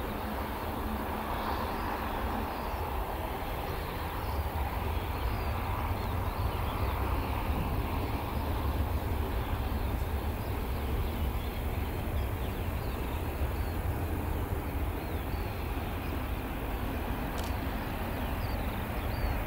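Distant Boeing C-17 Globemaster III on landing approach, its four turbofan engines heard as a low steady rumble that grows slowly louder as it nears.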